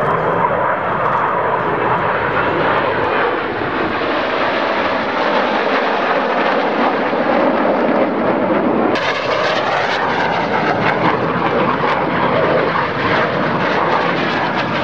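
Jet noise from the Red Arrows' formation of BAE Hawk T1 jets flying past, a steady, loud rushing sound. About nine seconds in the sound changes abruptly and turns thinner and brighter.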